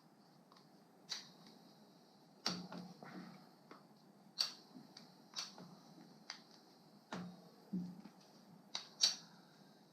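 Irregular light clicks and taps, about ten in all, from small metal carburetor parts and tools being handled during disassembly of a Harley-Davidson Evolution carburetor.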